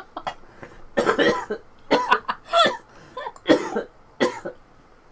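A person coughing: five coughs in a row, starting about a second in and spaced roughly half a second to a second apart.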